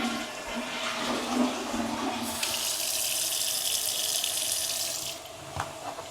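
Water running in a bathroom: a toilet flush draining away, then a faucet running into the sink from about two seconds in. The water cuts off about five seconds in.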